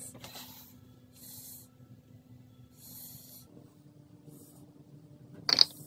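Rubber-bulb turkey baster squeezed and released to move motor oil into a small sample bottle: short soft hisses of air about every second and a half, and one short, loud sputter near the end.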